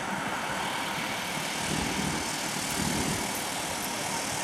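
Steady outdoor background rumble with hiss, like distant engine noise.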